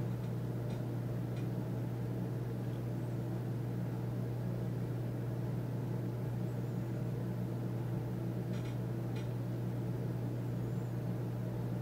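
A steady low machine hum, with a few faint ticks.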